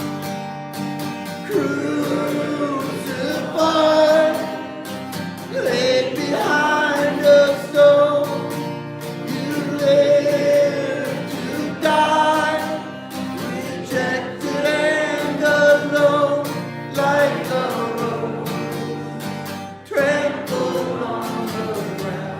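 Slow worship song: a voice singing long, drawn-out phrases over strummed acoustic guitar.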